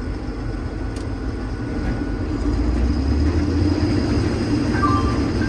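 Combine harvester running steadily while harvesting, heard from inside the cab, growing louder a couple of seconds in. Near the end a two-tone electronic beep starts repeating about every 0.7 seconds.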